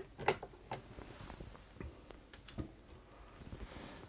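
A few light metallic clicks and ticks from the hinged handle of a Hexagon sewing machine's hand crank being moved while its hinge points are oiled. They come more often in the first half and thin out later.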